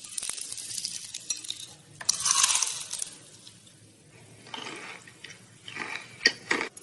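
Close-up eating sounds: crunching, crackly chewing of food, louder about two seconds in, with a few sharp clicks near the end.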